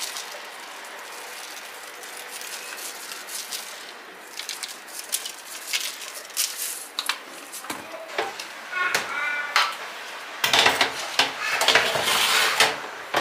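A plastic spice shaker tapping and rattling as sesame seeds are shaken over a baking tray of pastries. A short squeak comes about nine seconds in, then a metal baking tray scrapes and clatters as it is pushed into the oven.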